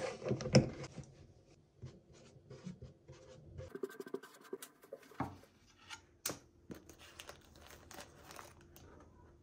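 Marker pen scratching on a plastic food container, with knocks from the container being handled in the first second. From about four seconds in, a run of sharp light clicks and taps of objects being handled.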